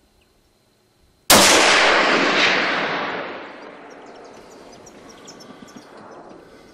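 A single rifle shot, sudden and loud, about a second in, its echo rolling away through the wooded hillside for about two seconds.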